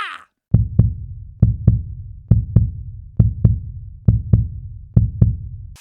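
Heartbeat sound effect: six double thumps of a beating heart, a lub-dub pair a little under once a second.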